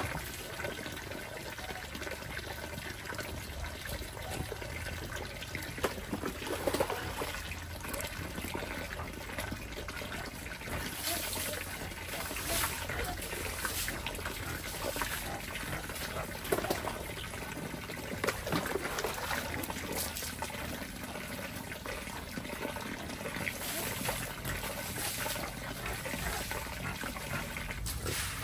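Water running from an outdoor tap into a plastic bin, a steady trickling splash with a few brief louder noises along the way.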